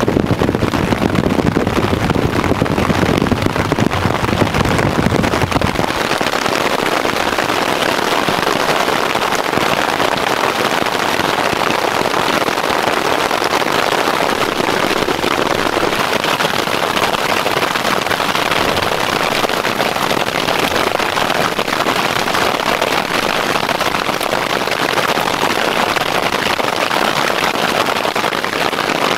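Hail and heavy rain pelting a nylon tarp shelter, a loud, dense, unbroken patter of impacts. A low rumble underneath drops away about six seconds in.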